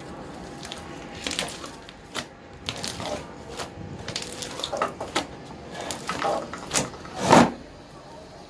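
Slime being kneaded and squeezed by hand, giving irregular squishing and clicking pops, the loudest about seven seconds in.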